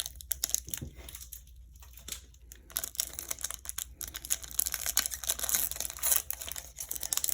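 Foil wrapper of a Pokémon card booster pack crinkling and tearing as it is handled and opened, a crackle that gets busier after about three seconds.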